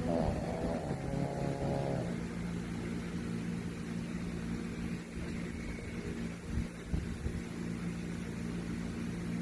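Dog snoring loudly: one drawn-out, pitched snore over the first two seconds, then softer breathing with a couple of low snorts near the middle, over a steady low hum.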